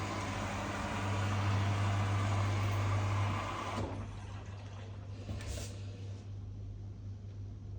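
Washing machine starting its rapid wash cycle: water rushes in through the inlet, then cuts off about four seconds in, over a steady low hum.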